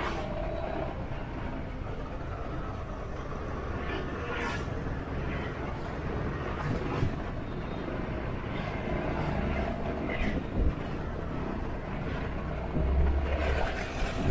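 Steady city traffic noise heard while riding through it: motorbike and car engines with road rumble, broken by a few brief sharper sounds and a louder low rumble near the end.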